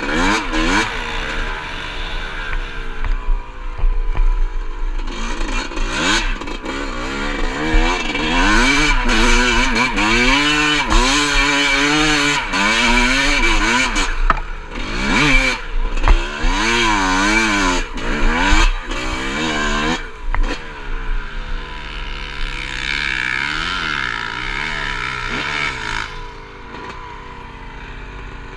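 Two-stroke Yamaha YZ dirt bike engine revving up and down over and over as it is ridden, with scattered knocks. It drops to a quieter running near the end.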